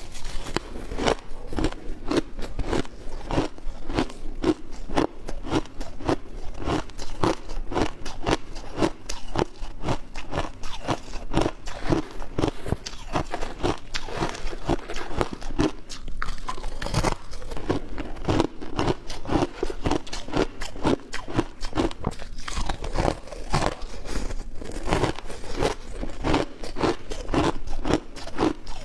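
Ice being bitten and chewed up close: a continuous run of crisp crunches, several a second, as mouthfuls of frozen shaved ice are crushed between the teeth.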